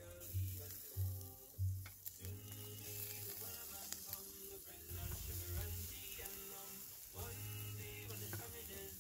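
Pork belly and asparagus sizzling over hot charcoal on a kettle grill, with a few light clicks of metal tongs against the grate. Background music with a pulsing bass beat plays over it, loudest in the first couple of seconds.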